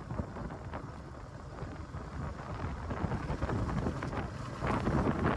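Wind buffeting the microphone of a moving motorcycle, with the engine and road rumble underneath, gusting louder near the end.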